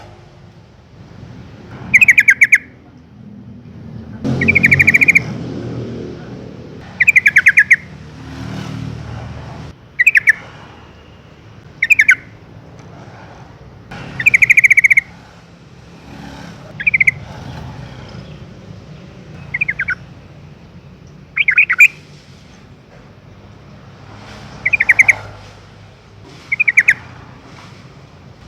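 Yellow-vented bulbul calling: short, loud bursts of rapid chattering notes, repeated about every two seconds, over a low background rumble.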